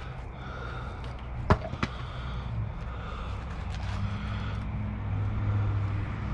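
A steady low mechanical hum that grows louder in the second half, with one sharp knock about a second and a half in and a few lighter ticks.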